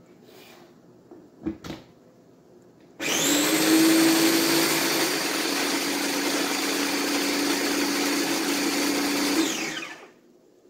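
Small electric blender running for about six and a half seconds as it purees onion, garlic, soy sauce, vinegar and pineapple juice into a marinade, its pitch dropping slightly about two seconds in, then cutting off and spinning down. A couple of clicks come before it as the motor head is fitted onto the jar.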